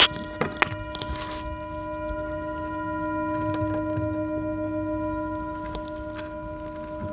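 A struck bell ringing on with a steady, many-toned hum that fades only slowly. Two sharp knocks come in the first second.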